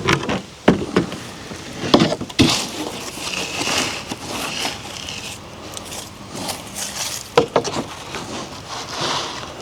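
Wooden boards being handled and laid out: a few sharp knocks of board on board, near the start, around two seconds in and again past seven seconds, with scraping and shuffling between them.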